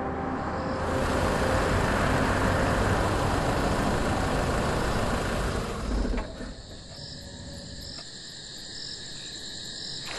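Safari vehicle driving on a dirt track, a steady engine-and-tyre rumble that drops away about six seconds in. After that a steady high insect trill remains, pulsing about once a second.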